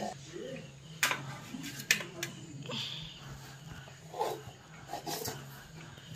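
Metal plates and a serving spoon clinking as biryani is dished out of a metal pot onto steel plates, with a few sharp clinks, under a low steady hum and faint voices.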